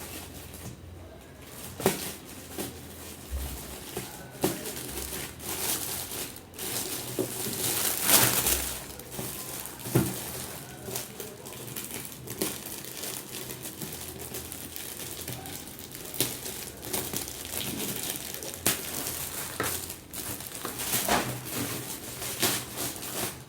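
Gift wrapping crinkling and rustling in irregular bursts as a Christmas present is handled and unwrapped, with scattered sharp clicks and taps. The loudest rustle comes about eight seconds in.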